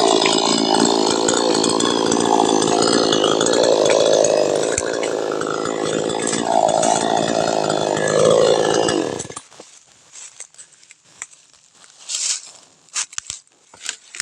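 Chainsaw running and cutting branches, its engine note shifting as it works, then shutting off suddenly about nine seconds in. After that come faint rustles and a few sharp knocks.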